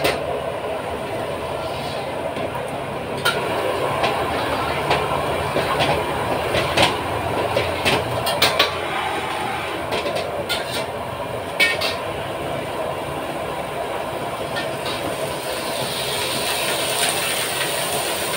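Fried rice being stir-fried in a wok: a steady burner and frying noise, with irregular metal clanks of the spatula against the wok.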